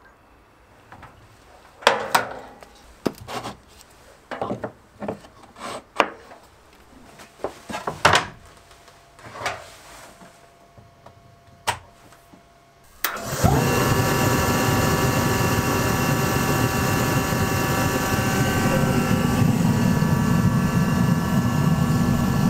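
Scattered clicks and knocks of handling, then about 13 seconds in a diesel forced-air heater starts up abruptly. Its blower and burner run loudly and steadily, with a steady multi-tone whine over the rushing air.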